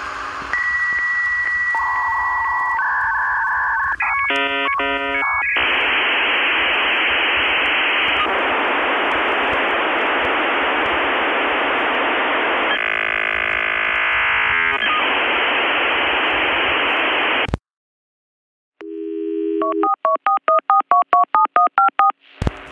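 Telephone sound effects laid over the soundtrack: a steady line tone, a quick run of touch-tone dialing about four seconds in, then a long stretch of hiss like a dial-up connection. After a brief silence comes a run of rapid beeps alternating between two pitches.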